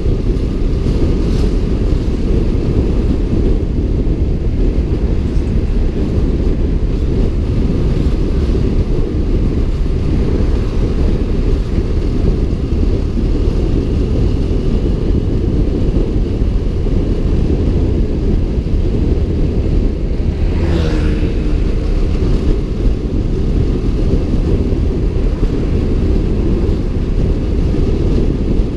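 Steady low rumble of a BMW F 700 GS motorcycle riding along, its parallel-twin engine mixed with wind on the helmet-camera microphone. About three-quarters of the way through, a brief passing sound falls in pitch.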